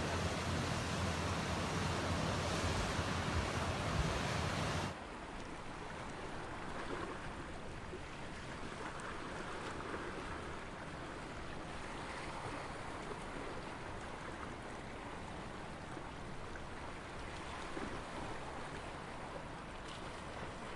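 Mediterranean sea waves washing steadily on the shore. For the first five seconds a heavy low rumble of wind on the microphone sits over the sea, then cuts off suddenly, leaving a softer, even wash of water.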